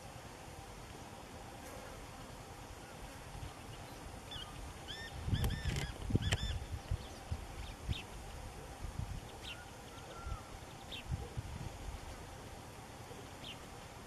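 Small songbirds calling: a quick run of five or six short, nasal chirps about five seconds in, then a few single sharp chips spread through the rest. Low thumps come with the chirps, over a steady background hiss.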